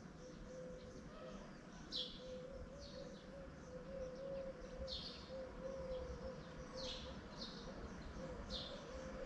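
Birds chirping faintly: short, sharply falling high chirps repeating every second or so, over a faint steady hum and soft outdoor background noise.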